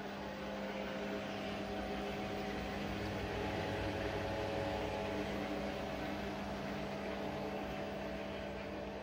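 A steady mechanical hum with an even hiss behind it, a little louder in the middle.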